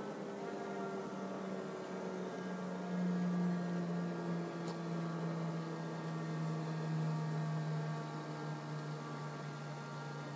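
Skydio 2 quadcopter's propellers humming in flight, a steady hum whose pitch slowly falls as the drone flies its route, a little louder about three seconds in.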